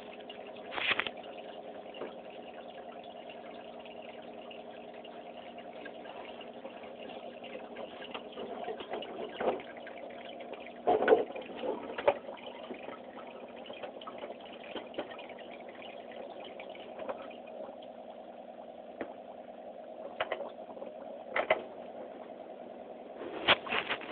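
Aquarium pump running with a steady hum over moving water, with a few short knocks scattered through.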